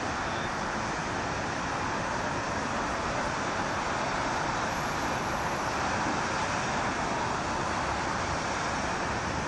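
Steady wash of distant road traffic noise, even and unbroken, with no distinct events.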